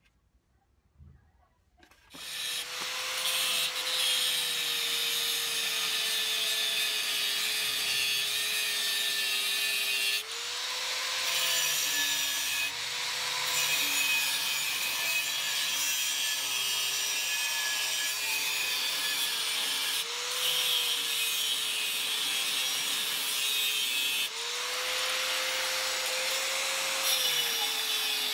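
Handheld electric angle grinder cutting into a metal part held in a bench vise, starting about two seconds in. A steady motor whine runs over loud grinding hiss, and the whine rises in pitch briefly several times as the load on the disc eases.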